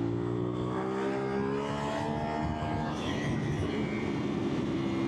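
CFMOTO 450SR parallel-twin engine with an Akrapovič exhaust pulling under throttle: the revs climb for about two seconds, drop at a gear change, then run on more steadily.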